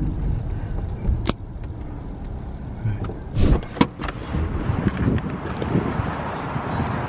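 Car cabin noise from a Toyota sedan rolling slowly: a steady low rumble with a sharp click about a second in. Around the middle come a couple of knocks as the driver's door is unlatched and pushed open, and after that a brighter hiss of open-air traffic noise takes over.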